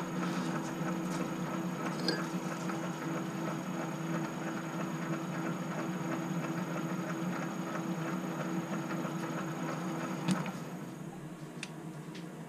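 Metal lathe running, its chuck spinning an off-centre aluminium block with a steady hum. About ten seconds in it is switched off with a click and the hum dies away.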